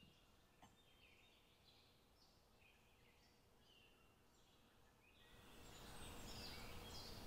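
Faint birdsong: many short repeated chirps and warbles over a low background hiss, growing louder about five seconds in.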